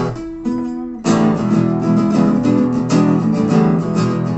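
Instrumental break of an acoustic rock song: two guitars strummed in a steady rhythm. The strumming thins out briefly near the start, chords ringing, then comes back in full about a second in.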